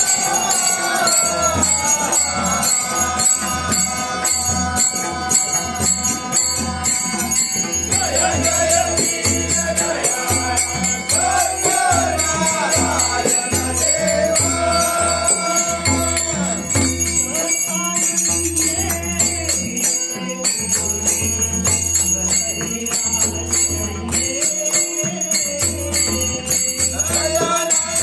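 A group of men singing a Marathi devotional aarti together to a harmonium, with steady hand clapping and jingling percussion keeping the beat.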